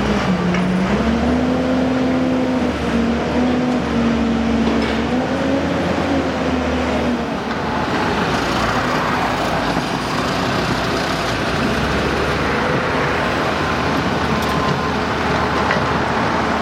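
Road traffic noise with a vehicle engine clearly audible, its pitch climbing at first and then wavering for about the first seven seconds before it fades into the steady rush of traffic and tyres.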